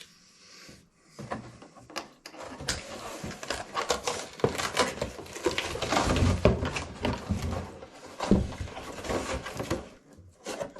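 Packaging and detector parts being handled and unwrapped: a dense, irregular run of crackling, rustling and light knocks that starts about a second in.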